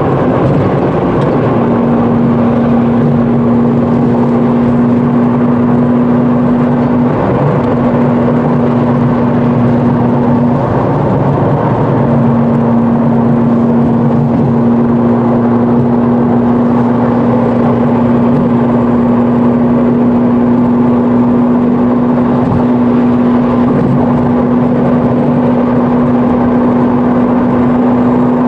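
Ferrari 458's V8 engine and road noise heard from inside the cabin while driving, a steady drone. The engine note drops away briefly twice in the first half, then holds steady.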